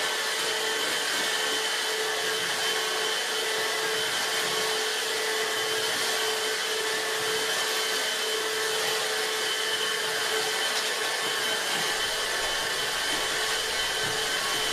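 Dibea F6 cordless stick vacuum running steadily while vacuuming quartz sand from carpet: an even motor hum with a steady high whine over the rush of air.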